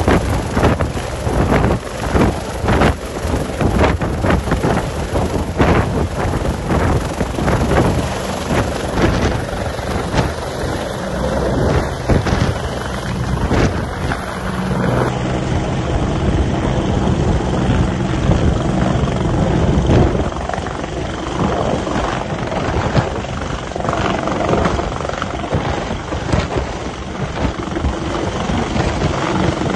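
Twin-turbine Bell 430 helicopter hovering close by and flying off low, its rotor and engines loud, with rotor wash buffeting the microphone. About halfway in, a cut to another helicopter running with its rotors turning on the pad.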